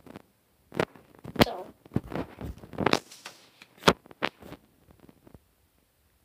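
Irregular knocks, bumps and rustles from a handheld phone being swung and handled, with about a dozen sharp knocks over the first five seconds before it goes quiet.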